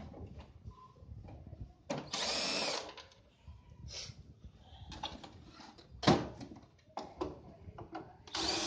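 Cordless drill-driver backing out the screws of a CRT television's plastic back cover, running in short bursts of under a second, about two seconds in and again near the end. A sharp knock comes about six seconds in, with small clicks between the bursts.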